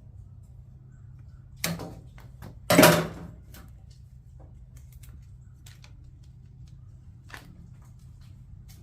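Handling noise from fitting weather stripping to an aluminum storage box: two brief loud noisy bursts about two and three seconds in, the second the louder, then scattered light clicks and taps over a steady low hum.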